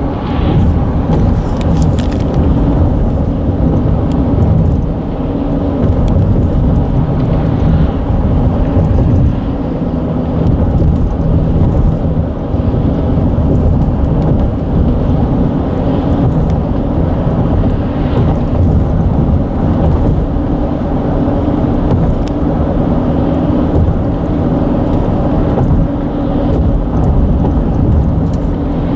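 Deep, steady rumble of a road bridge vibrating under traffic, with a fainter hiss swelling and fading every several seconds.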